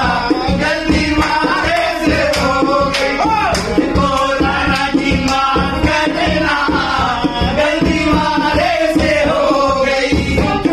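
Men singing together, accompanied by a harmonium and a dholak drum beating a steady rhythm.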